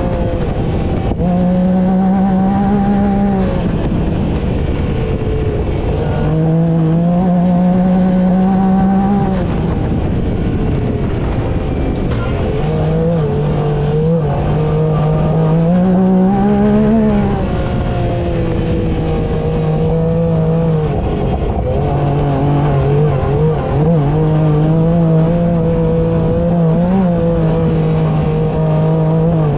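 Yamaha YXZ side-by-side's three-cylinder engine running while driving on a trail, its note holding for a few seconds at a time, then dropping and climbing again several times as it is throttled and shifted.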